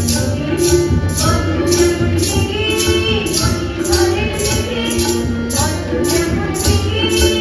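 Live Indian devotional-style music: harmonium, tabla and a barrel drum, with a jingling percussion beat about twice a second and boys' voices singing along.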